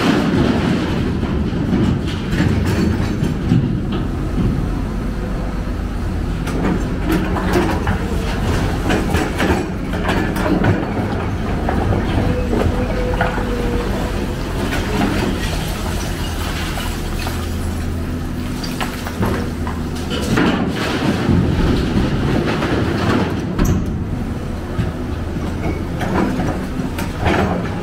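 Heavy diesel machinery running steadily, with frequent clanks and knocks throughout and a short whine about halfway through.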